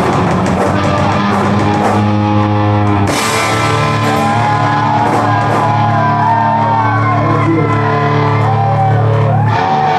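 A rock band playing live: amplified electric guitar and bass with drums, the guitar holding notes that bend up and down. A cymbal crash comes about three seconds in.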